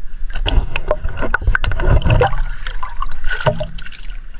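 River water sloshing and splashing right at the microphone as people wade and feel about chest-deep in the river, with irregular low knocks and sharp splashy clicks, heaviest in the first two seconds.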